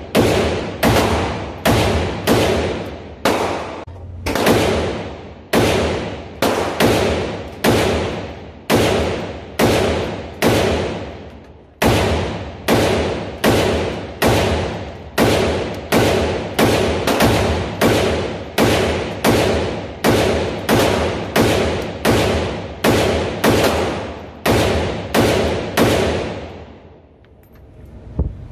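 A string of several dozen rifle shots from an AR-style rifle, fired steadily about every half second, each shot ringing out in a long echo off the walls of an indoor range. The firing stops near the end.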